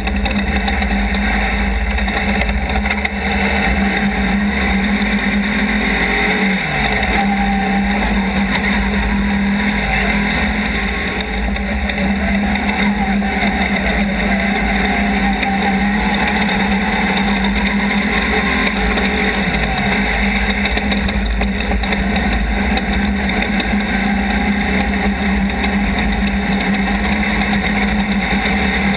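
Off-road race vehicle's engine running hard at a mostly steady pitch, with road and wind noise, during desert racing.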